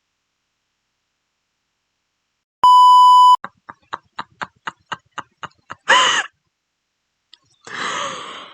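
A censor bleep: one steady high beep lasting under a second, cut in after a couple of seconds of dead silence. It is followed by a quick run of about a dozen ticks, a brief pitched sound and a short noisy burst near the end.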